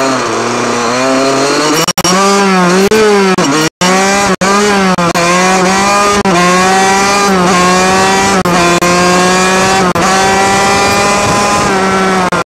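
Kawasaki KX80's two-stroke single-cylinder engine under way, heard up close on board. Its pitch climbs and falls several times in the first few seconds as the rider works the throttle, then holds a steadier note that slowly sinks near the end. The sound cuts out for an instant a few times.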